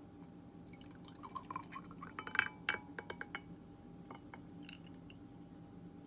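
A quick run of small light clicks and clinks, loudest about two and a half seconds in, with a few fainter ticks later, over a low steady hum.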